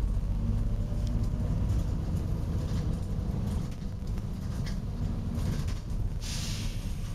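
Volvo B9TL bus's 9.4-litre six-cylinder diesel engine running with a steady low rumble. A brief burst of compressed-air hiss comes about six seconds in, after a few fainter short hisses.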